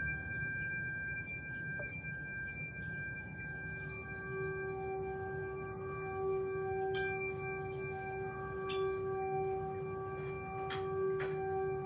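Singing bowls ringing together in several steady, overlapping tones, with a lower tone swelling in about a third of the way through. Twice past the middle a bright metallic strike rings out over them, and a few lighter taps follow near the end.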